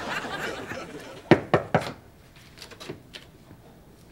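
Knuckles knocking three times, quickly, on the frosted glass panel of an office door.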